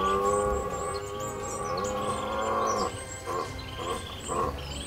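Red deer stag roaring in the rut: one long drawn-out roar that drops in pitch at the start, followed about three seconds in by a series of short grunting calls.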